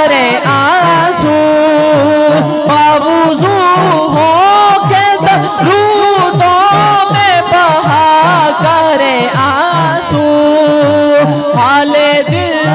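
A male naat reciter singing a long, wordless, winding melodic line into a microphone over a steady low beat that repeats about three times a second.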